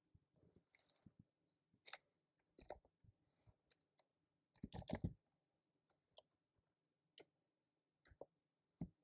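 Scattered, quiet keystrokes on a keyboard, with a short quick run of louder keystrokes about five seconds in and single key taps after it.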